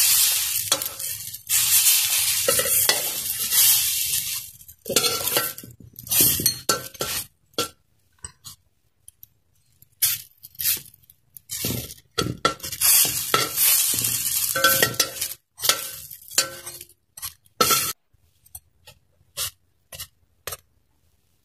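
Metal spoons scraping and clinking against a wok while pieces of Spanish bread sizzle in it. Continuous scraping and sizzling for the first four seconds or so, then short scrapes and taps with silent gaps between, and a few light clinks near the end.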